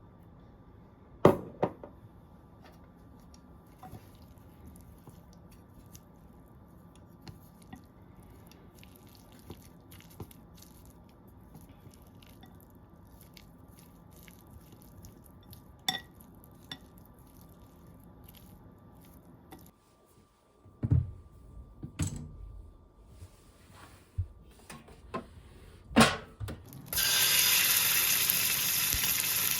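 A few scattered knocks and clicks of utensils, then, near the end, a loud, steady sizzle starts as food begins frying on a hot plate.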